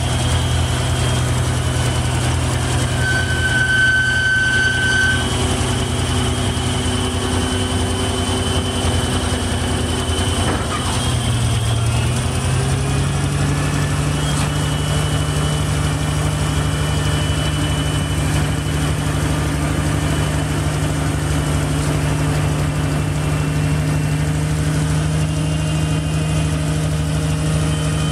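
Truck-mounted Scavenger street sweeper running its equipment: a steady engine and vacuum-blower hum. The engine's pitch rises a little about twelve seconds in and then holds steady.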